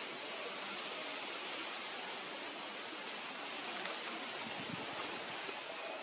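A steady, even hiss of background noise, with no bird calls.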